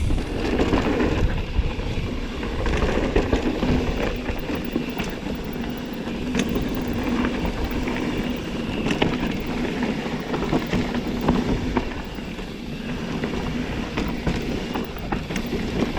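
Mountain bike descending a rough dirt trail: steady rolling rumble of the tyres with frequent rattles and clicks from the bike.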